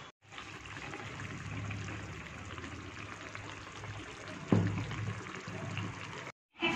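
Hilsa in mustard gravy simmering in a pan: a steady bubbling hiss over a low hum, with one louder knock about four and a half seconds in.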